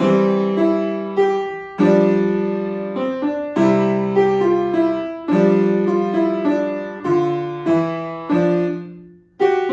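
Piano playing a light, lively waltz: chords and melody notes struck in short phrases, each ringing and fading. Near the end the sound dies away almost to nothing before the next chord is struck.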